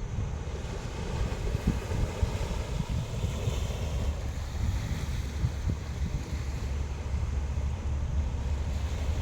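Sea waves washing onto a beach, with wind buffeting the microphone as a steady low rumble.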